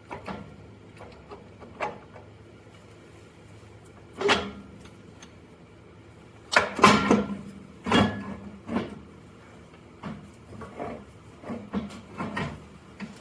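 Scattered metal knocks and clanks as the Sherman forward-reverse transmission is worked loose from the Ford 620 tractor. The loudest cluster comes about six and a half to eight seconds in, with quiet gaps between the knocks.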